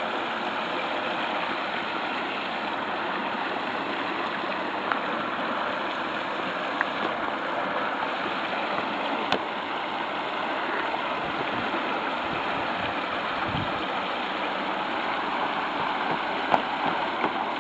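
Water rushing steadily over a small concrete weir, with a few sharp knocks near the end.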